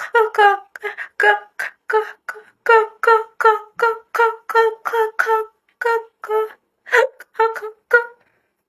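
A woman's voice imitating a hen clucking: a quick, even run of short pitched clucks, about three a second, that stops shortly before the end.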